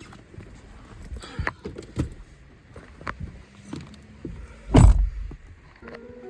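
Scattered clicks and knocks of people moving about inside a car, then a car door shutting with one loud thump about five seconds in.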